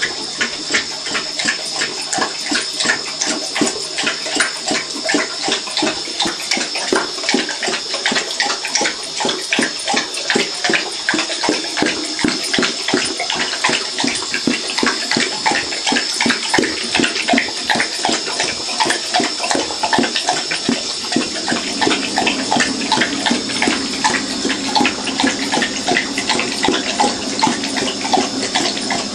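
Water running from a bidet tap into the ceramic bowl while a boxer dog laps at the stream, with quick, steady splashing throughout. A low steady hum joins about two-thirds of the way through.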